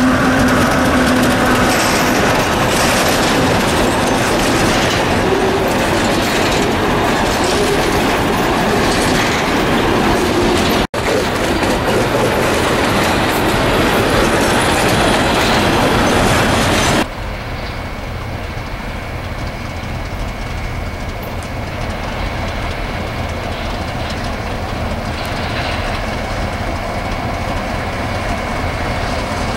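Diesel freight trains on the move: a locomotive and then its wagons rolling past close by, loud and dense with wheels clicking and rattling over the rails. About seventeen seconds in, the sound drops abruptly to a quieter, steadier rumble of another diesel-hauled freight train approaching from further off.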